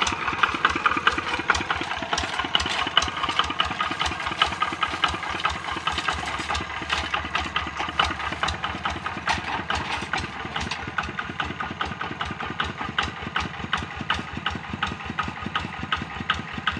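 Kubota RD65 single-cylinder diesel engine of a two-wheel hand tractor running steadily under way, with a quick, even beat of firing strokes.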